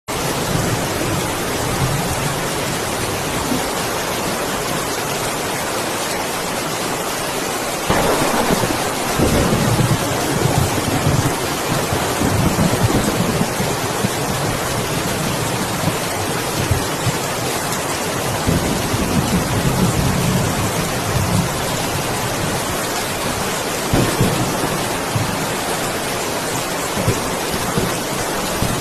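Steady rain falling, with thunder rumbling in about eight seconds in for several seconds and a shorter rumble near the end.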